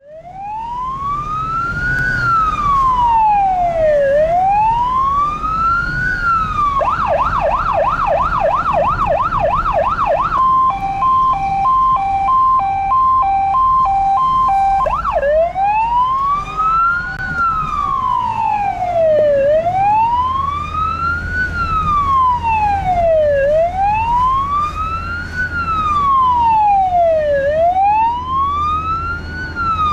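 Fire-brigade vehicle siren cycling through its modes: a slow wail rising and falling about every four seconds, switching about seven seconds in to a fast yelp of about three sweeps a second, then to a high-low two-tone, then back to the slow wail about fifteen seconds in. Engine and road rumble run underneath.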